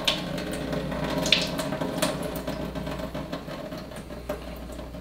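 Vinegar liquid squeezed by hand from pickled onions, trickling and splattering into a stainless-steel sink. It is louder in the first two seconds, then eases off.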